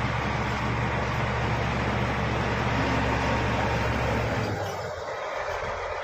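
Shantui bulldozer's diesel engine running steadily under load, with a broad mechanical clatter over it. About four and a half seconds in, the low engine tone drops away and the sound gets a little quieter.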